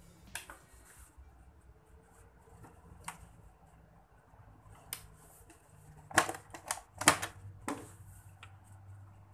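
Scattered sharp plastic clicks of a 13 A socket switch on a home-made extension being flicked off and on to test a plugged-in tube light, with light handling knocks; the loudest two come about six and seven seconds in. A faint, steady low hum runs underneath.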